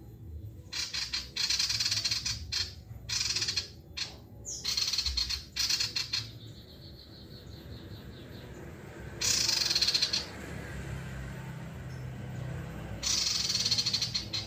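Male sirtu (common iora) singing in loud, rapid bursts of high chattering song, broken by short pauses.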